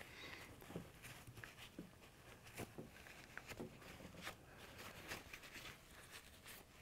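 Faint paper-towel rustling with scattered light ticks as an AR-15 firing pin is wiped clean of carbon by hand.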